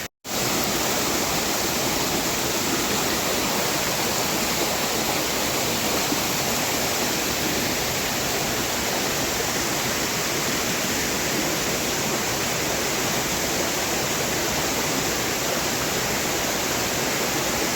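Steady rush of fast-flowing river water, with no change from start to finish.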